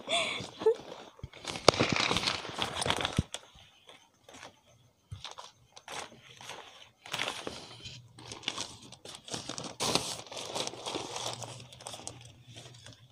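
Plastic bags and gift wrapping crinkling and rustling as they are handled, in uneven bouts, loudest about two seconds in and again near ten seconds.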